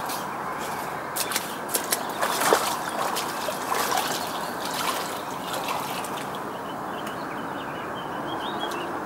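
Chest-wader boots splashing through shallow lake water, a run of sloshes and splashes over a few seconds, loudest about two and a half seconds in, then quieter. Small birds chirp faintly in the background.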